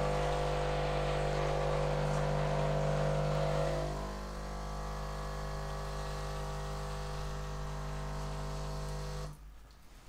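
Philips LatteGo 5400 coffee machine's pump running during its automatic start-up rinse: a steady hum that gets quieter about four seconds in and cuts off near the end, when the rinse is finished.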